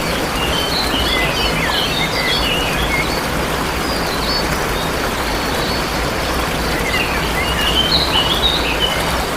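Steady rush of a waterfall with small birds chirping over it: a flurry of quick chirps in the first few seconds and another near the end.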